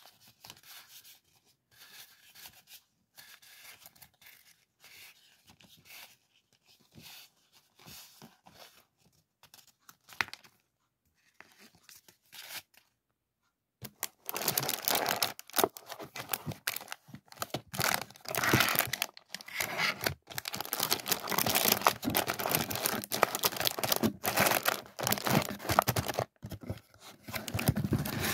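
Soft rustling of a paper sheet being handled. About halfway through, after a brief pause, loud crinkling and crackling of cellophane-wrapped stationery packs being handled in a cardboard box.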